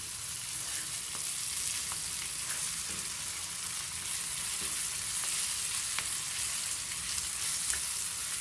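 Stuffed green chillies sizzling in oil in a small non-stick pan over low heat, with a steady frying hiss. A spoon stirs and turns them, giving a few light clicks against the pan.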